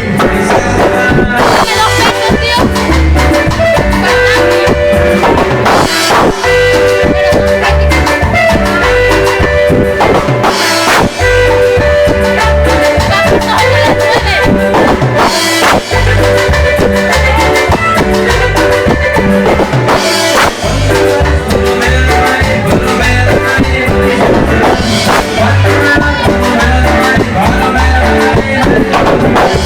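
Latin dance music in salsa style played on electronic keyboards, with a steady drum beat and a repeating bass line.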